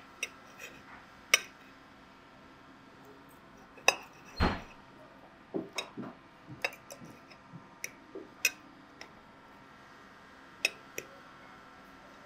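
Knife and fork clinking and scraping on a ceramic plate as food is cut, in scattered sharp clicks. One duller thump comes about four and a half seconds in.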